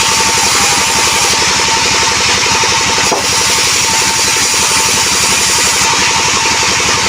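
Band sawmill running steadily: a fast, even machine pulsing with a steady high whine over it, unbroken throughout.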